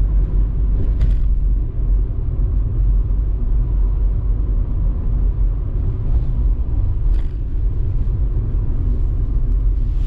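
A car driving along a road: a steady low rumble of tyres and engine.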